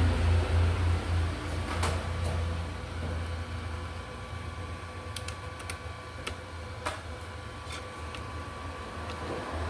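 Steady low hum with a few short, sharp clicks and taps of small parts and tools being handled on a laptop being taken apart.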